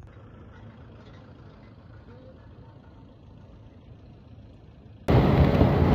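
Faint steady outdoor background noise. About five seconds in, an abrupt cut to loud wind rumbling and buffeting on the microphone, with vehicle noise beneath it.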